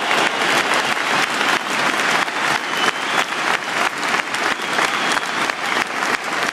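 A large stadium crowd applauding steadily, many hands clapping at once.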